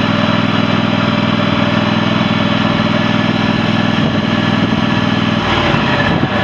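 V-twin engine of a Sabre lawn tractor by John Deere running steadily; about five seconds in its even note changes and turns uneven.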